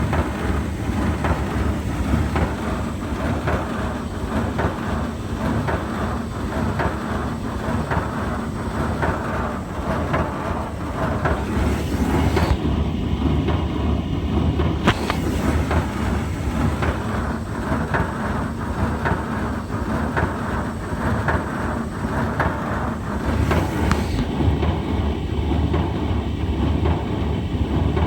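Brand new Hotpoint tumble dryer running with a steady rumble and a dense, continuous rattling clatter, a terrible noise on first use that the owner is unsure is normal.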